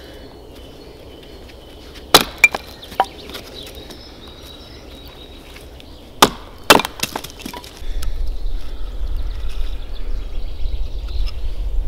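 Homemade wooden mallet striking the spine of a knife, batoning it into a dry log to split firewood: sharp wooden knocks in two groups of three, about two seconds in and about six seconds in. A steady low rumble sets in about eight seconds in.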